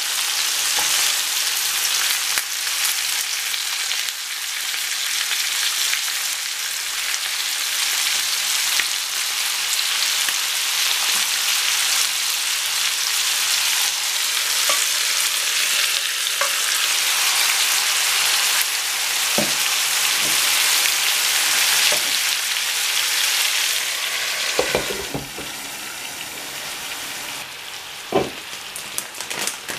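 Chicken frying in oil in a nonstick frying pan, a steady sizzle, with a few light knocks; the sizzle quietens near the end.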